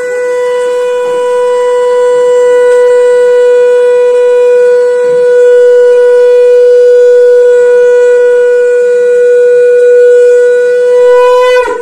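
Conch shell (shankh) blown in one long, loud, steady note for a Hindu puja. The note dips in pitch and cuts off abruptly near the end.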